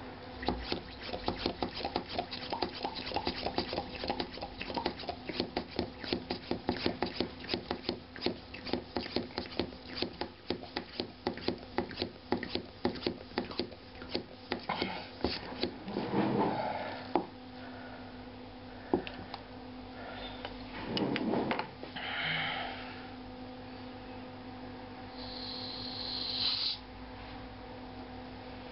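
Hand vacuum pump on the lid of a glass jar worked with quick repeated strokes for about fifteen seconds, drawing the air out of the jar. Afterwards come a few scraping rubs, and near the end a short high hiss that cuts off suddenly as air is let back into the jar. A faint steady hum runs underneath.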